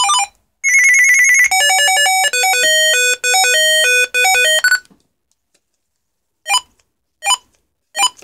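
Electronic beep melodies from a Uniden UHF CB radio played through a homemade external speaker built from two PC speaker units: a fast two-note tune ends right at the start, a warbling tone follows, then a stepped melody of beeps for about three seconds. After a pause, three short single beeps come about a second apart near the end.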